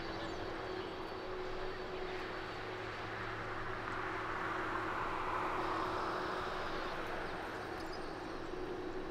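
Boeing 747-400 freighter's four jet engines running at low taxi power: a steady hum and rush with a constant tone, swelling slightly in the middle.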